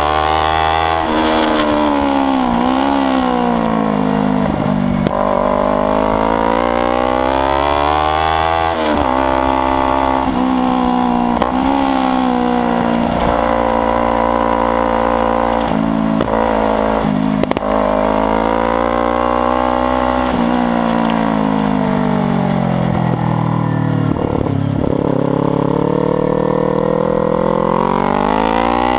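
Kawasaki Ninja 300's parallel-twin engine running hard on track and loud. The revs climb and fall over and over, with quick dips at gear changes and longer slides down between climbs.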